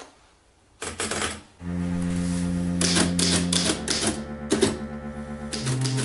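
Underwood manual typewriter: a short rattle about a second in as the paper is wound onto the platen, then keys clacking in quick runs. Music with held low notes comes in about a second and a half in and runs under the typing.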